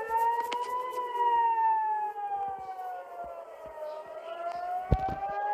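Emergency warning siren wailing slowly up and down. Its pitch rises for about a second, falls for about three, then climbs again. A single thump sounds about five seconds in.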